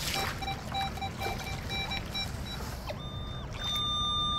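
Metal detector signalling a buried target under the water: short, irregular beeps as the coil sweeps, then, about three seconds in, a steady higher tone that holds. A shallow stream runs around the submerged coil and the wading boots.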